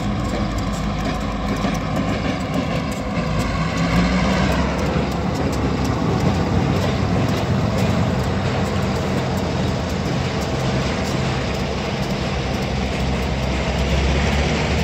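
Diesel locomotive engines running in a rail yard with a steady low rumble. A whine slides down in pitch over the first few seconds.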